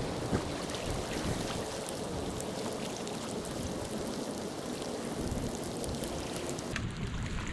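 Steady rain with wind buffeting the microphone, many drops ticking sharply close by. The high hiss drops away abruptly near the end.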